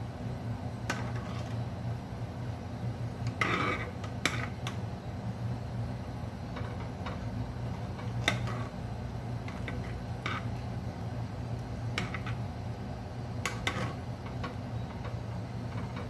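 A metal ladle stirring soup in a pot, scraping and knocking against the pot's sides a dozen or so times, to keep the cornstarch that thickens it from clumping. A steady low hum runs underneath.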